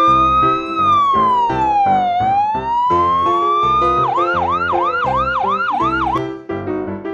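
An emergency-vehicle siren sound effect wailing slowly up and down, then switching about four seconds in to a fast yelp of about four sweeps a second, which stops near the end. Children's background music with a steady beat plays underneath.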